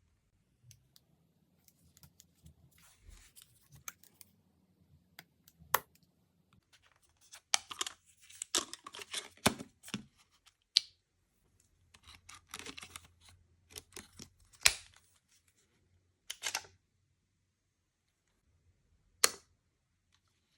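Packaging handled during an unboxing: rustling and tearing, with several sharp clicks and snaps spread through.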